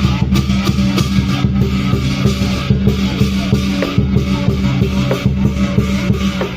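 Loud music with a steady run of drum hits over sustained low tones.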